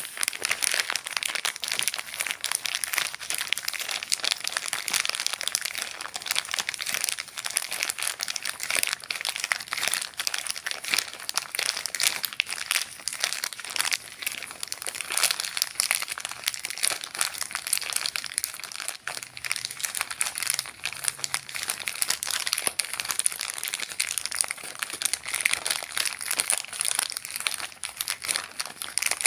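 A Rizla filter-tip packet being crinkled and handled, a dense, unbroken run of small crackles.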